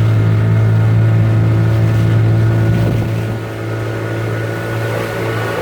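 A boat's engine running at a steady speed, a constant low hum that eases a little in loudness about three seconds in.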